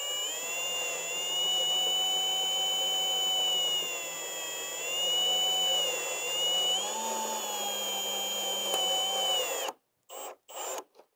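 Cordless drill driving a screw through the aluminum end piece of a gutter guard into the gutter, set on its lowest torque setting. The motor whines steadily, its pitch dipping and rising a little, then stops suddenly near the end.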